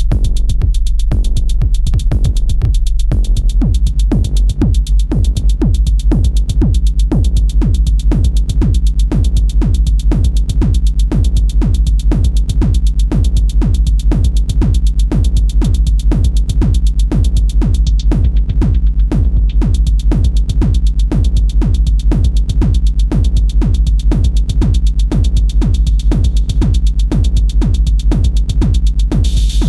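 Electronic dance music with a steady, fast drum-machine beat over heavy bass; the high end drops out for a moment about two-thirds of the way through.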